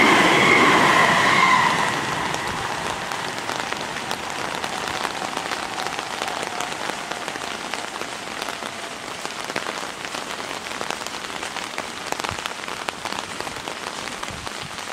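A Seibu 30000-series electric train finishes passing close by in the first two seconds, with a steady high whine over the rumble, then fades away. Steady rain then falls with a patter of drops.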